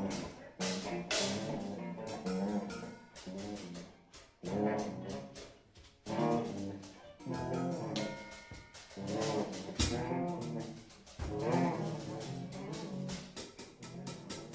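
Live jazz-like music from a guitar and drums/percussion duo: sustained pitched guitar phrases with brass-like tone, broken by short gaps, over sharp drum and cymbal strikes.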